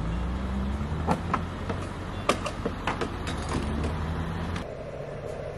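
Clicks, clacks and clunks from a fuel pump being worked by hand, as its buttons are pressed and the nozzle is handled, over a steady low hum. Near the end the hum gives way to a mid-pitched hiss.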